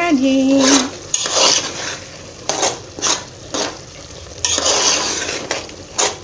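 Spoon scraping and stirring in a pan of freshly cooked egg and tomato sauce, in a string of separate strokes, with a light sizzle underneath.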